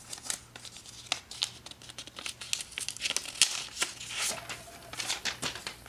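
Packaging being handled and pulled off a drawing tablet: irregular crinkling, rustling and small clicks of the wrapping against the tablet's casing.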